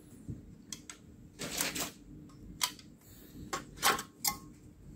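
A RAID controller card being worked out of its PCIe slot in a server riser cage: a string of short clicks, knocks and scrapes of circuit board against metal, loudest about a second and a half in and again near four seconds.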